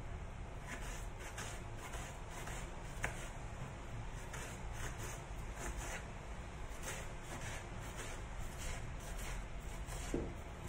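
Kitchen knife chopping an onion on a wooden cutting board: a run of light, uneven taps, about three a second, as the blade cuts through onto the board.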